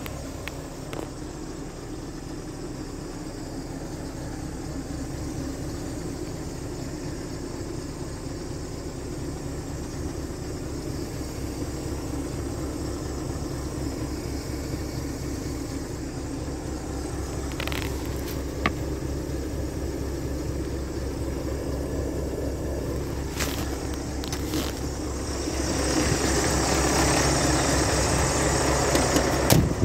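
Scania R520's V8 diesel idling steadily, heard from inside the cab, with a few sharp clicks in the second half. Near the end the engine and outside air noise get louder as the cab door is open.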